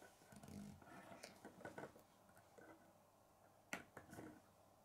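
Faint clicks and rustles of plastic K'nex rods and connectors being handled and pressed together, with one sharper click about three-quarters of the way through.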